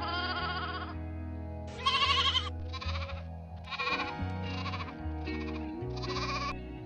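A sheep or goat bleating in a series of about seven short, wavering calls, the loudest about two seconds in, over soft background music.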